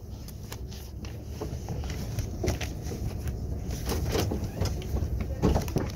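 Low steady rumble inside a KTX high-speed train's passenger cabin, with scattered knocks and clicks.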